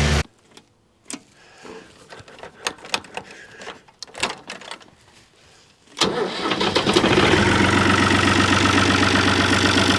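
After a few seconds of faint scattered clicks and knocks, an engine is started about six seconds in and settles straight into a steady idle.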